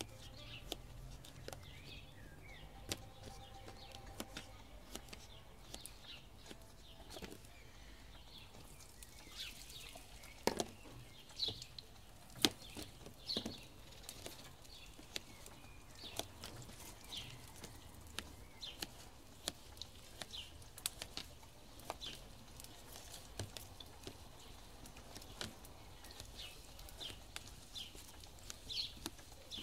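Knife cutting potatoes on a plastic plate: scattered sharp taps and clicks, the loudest bunched about ten to thirteen seconds in, with birds chirping throughout.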